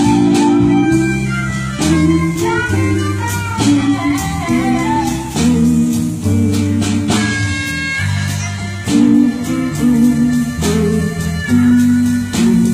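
Blues music from a band sound check: guitar over a bass line, with held notes that bend in pitch.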